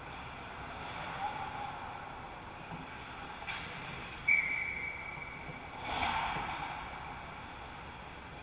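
A referee's whistle blown once, one steady high note lasting about a second and a half. A sharp knock comes just before it and a short noisy burst follows, over the rink's background hum.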